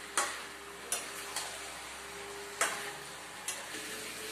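Spatula stirring a thick jackfruit and chickpea curry in a pan over a turned-up gas flame: a steady sizzle with several sharp knocks and scrapes of the spatula against the pan.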